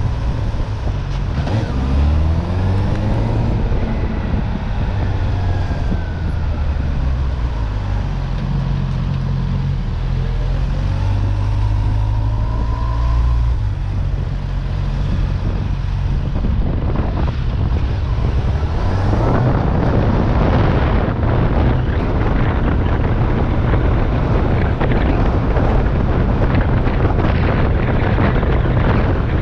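A moving vehicle running and accelerating, with a low rumble and a rising whine that climbs twice. Noise from the road and wind grows louder about two-thirds of the way in as it picks up speed.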